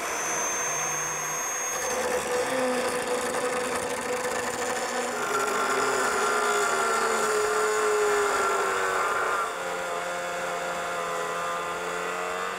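Small angle grinder with an abrasive cutting disc cutting through rusty steel rebar: a steady motor whine with the grinding hiss of the disc in the steel, the pitch sagging a little under load. It gets quieter after about nine and a half seconds, and the whine rises right at the end as the bar comes off.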